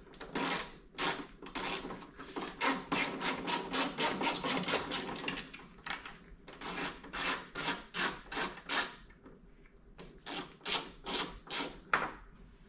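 Hand ratchet wrench working a headlight mounting bolt: repeated rasping ratchet strokes, about two a second, with a dense run in the middle.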